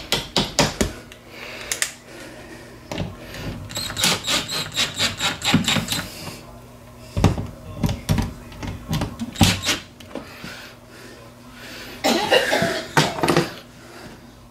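Cordless drill/driver driving the screws of a dimmer switch cover plate: several short runs of rapid clicking, with a short scuffing rustle near the end.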